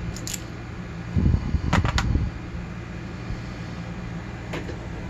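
Small metal clicks and low handling bumps as a brass follower pushes the plug out of a KIK lock cylinder, with three quick clicks close together just under two seconds in and another near the end. A steady low hum runs underneath.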